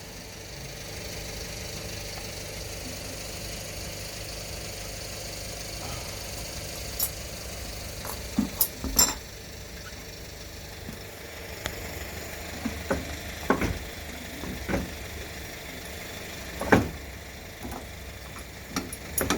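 A steady mechanical hum, with scattered clinks and knocks of hand tools and metal parts being handled while working on a scooter's rear wheel. The knocks come in the second half, the loudest a sharp one near the end.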